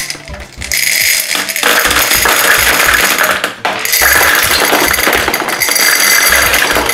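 Hard gumballs pouring from a glass jar into a glass gumball machine globe: a continuous dense clatter and rattle of candy balls striking the glass and each other, starting about a second in.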